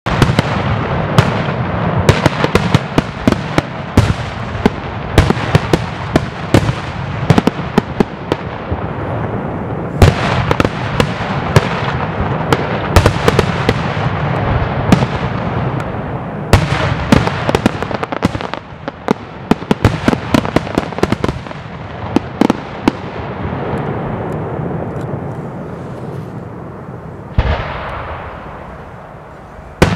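Aerial firework shells launched and bursting in quick succession: many sharp bangs over a dense crackle. The barrage thins out toward the end, then one more loud bang comes near the end.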